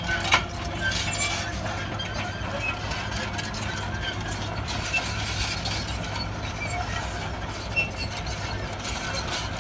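Heavy machinery engine running steadily with a low, even hum.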